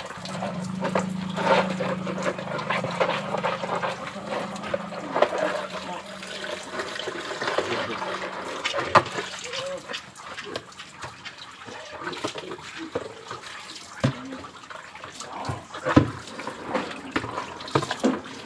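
Water splashing and trickling on a wet concrete floor during hand washing, with scattered knocks and scrapes. A steady low hum runs through the first eight seconds or so, then stops.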